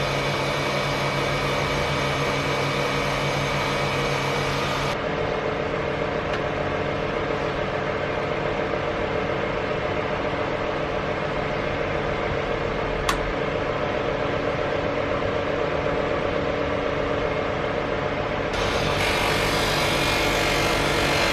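Electric polishing wheel running steadily as a glue repair is buffed, a constant motor hum whose tone shifts abruptly twice, with a single sharp click about two-thirds of the way through.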